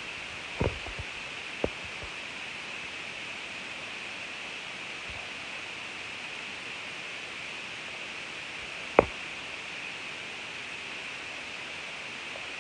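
Steady hiss of background or recording noise. A few soft knocks come in the first two seconds, and one short, sharp knock follows about nine seconds in.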